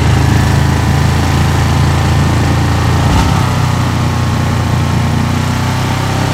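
Small boat motor running steadily under way, with a brief change in its note about three seconds in and a slow drop in pitch after it.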